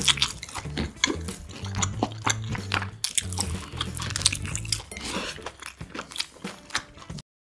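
Close-up crunchy biting and chewing of fried sprouts: a rapid run of crisp crackles and crunches. Background music with a steady bass line runs underneath for the first five seconds or so, and everything cuts off suddenly near the end.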